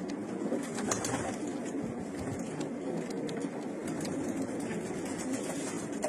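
Domestic pigeons cooing in a steady low drone, with scattered light clicks.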